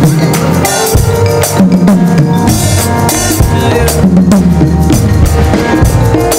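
Loud music led by a drum kit, with bass drum and snare strikes keeping a steady beat under other pitched instruments: church band music.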